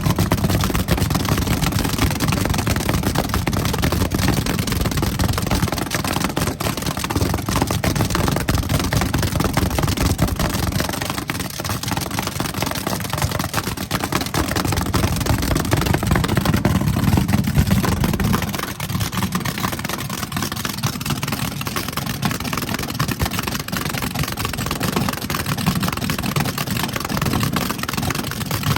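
Drag-racing car engine running with a deep, steady rumble that eases off a little about eighteen seconds in.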